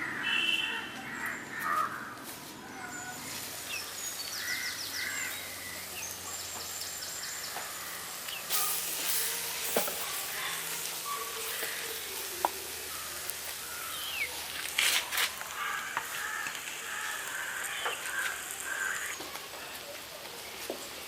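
Birds calling repeatedly over a steady hiss, with a few sharp clicks.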